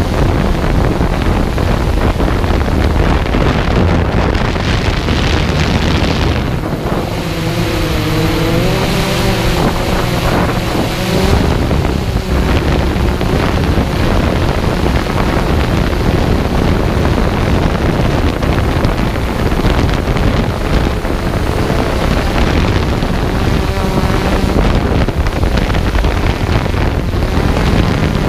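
Thunder Tiger TTRobotix Ghost+ quadcopter's motors and 12-inch propellers buzzing close to the GoPro's microphone, mixed with heavy wind buffeting. Between about seven and eleven seconds in, the motor pitch wavers as the drone changes speed.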